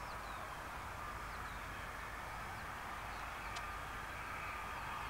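Distant steady whine of English Electric Lightning jet engines as the fighters move along the runway, growing slightly louder toward the end. Small birds chirp over it.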